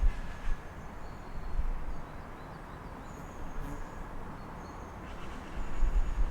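City street ambience: a steady low rumble of traffic, louder at the start and again near the end, with birds chirping in short, high notes.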